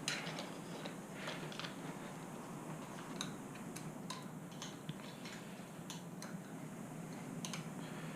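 Light, irregular clicks and taps of hand tools and small metal and plastic parts as controls are fitted back onto motorbike handlebars.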